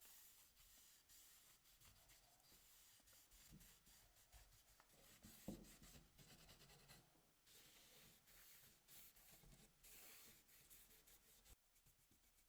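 Faint rubbing on a surface: short, irregular scratchy strokes that start and stop every second or so, dying down near the end.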